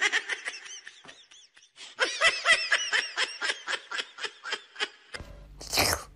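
High-pitched human laughter: a rapid string of short 'ha-ha' bursts that breaks off for about a second and then runs on until about five seconds in. Near the end there is one short, breathy burst of noise.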